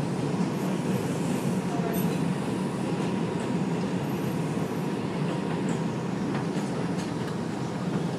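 R142 subway car running at speed on elevated track, heard from inside the car: a steady rumble of wheels on rail, with a few faint clicks.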